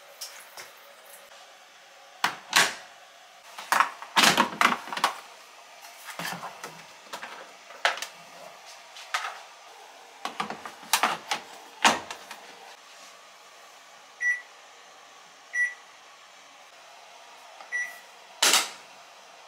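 Panasonic drum-type washing machine being loaded and set: a run of knocks and clicks as it is handled, then three short high beeps from its control-panel buttons, and one louder clunk near the end.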